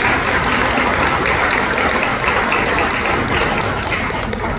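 Audience applauding, many hands clapping at once in a steady dense patter.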